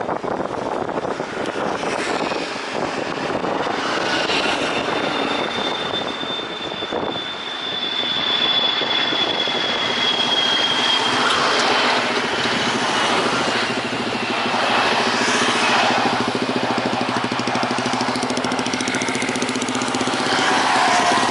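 Propeller aircraft engines running as the plane passes: a high thin whine slowly falls in pitch, and a steady drone swells louder after about eight seconds.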